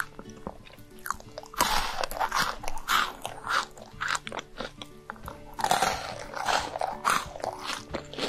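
Crunchy chocolate-coated balls being bitten and chewed close to the microphone, in two runs of crisp crunches about a second and a half in and again about five and a half seconds in. Background music with sustained notes plays underneath.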